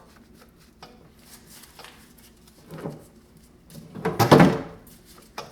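Hand tools knocking and scraping on a classic Mini 1275 A+ engine during piston removal, with one louder half-second sound about four seconds in.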